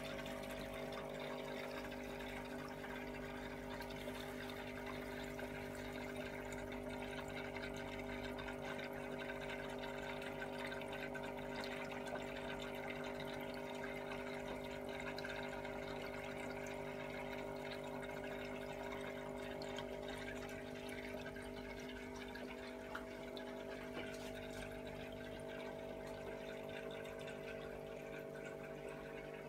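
Aquarium filter running steadily: a constant motor hum with water trickling into the tank.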